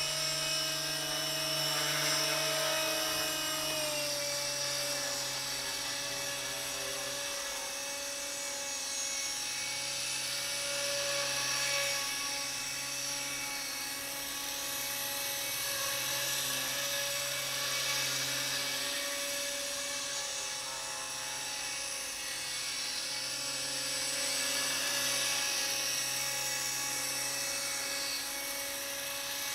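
Align T-Rex 250 electric RC helicopter's brushless motor and rotors running with a steady high whine, dropping slightly in pitch about four seconds in.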